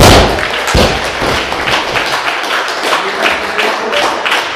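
A loaded barbell with Eleiko rubber bumper plates dropped from overhead onto the lifting platform: a loud crash, then a second thud from its bounce about three quarters of a second in. Spectators applaud steadily for a good lift.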